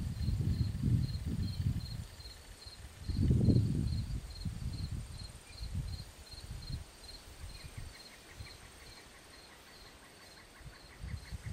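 Gusts of wind rumbling on the microphone, strongest in the first few seconds and then dying down. Under it, an insect chirps steadily high up, about two to three chirps a second.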